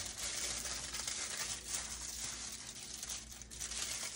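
Aluminium foil and banana leaf crinkling and rustling as they are handled with masa and shredded chicken on top, a steady run of small crackles.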